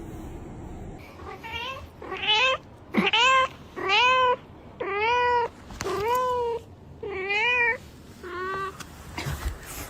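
Domestic cat meowing over and over: about eight drawn-out meows, roughly one a second, each rising and then falling in pitch.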